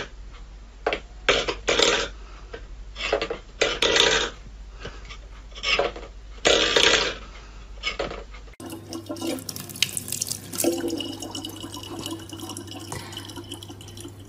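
A string of short, irregular noisy sounds, about a dozen of them. About two-thirds of the way through, these give way to a thin stream of water running steadily from a tap into a plastic water bottle, over a constant low hum.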